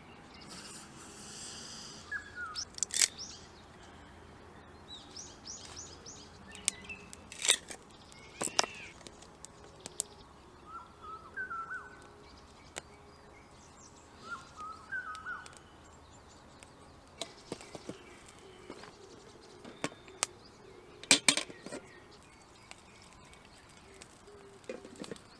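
Quiet outdoor ambience with a few short bird chirps and several sharp clicks and knocks, the loudest pair about three quarters of the way through.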